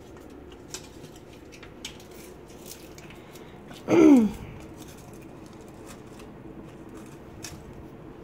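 Light clicks and snaps as thin kindling sticks are handled at the burning feed opening of a rocket mass heater. About four seconds in there is one short, loud sound that slides down in pitch.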